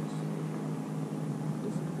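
Boat engine idling: a steady low hum.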